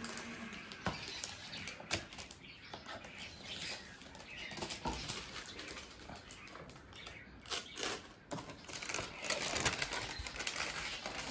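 Gift packaging being handled: wrapping and packing rustling and crinkling, with scattered sharp clicks and taps.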